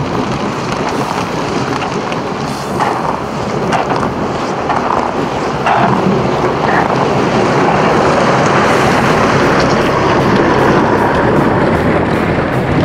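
Loaded plastic ice-fishing sled dragged across bare lake ice: a steady scraping rumble that gets louder about halfway through as it passes close by.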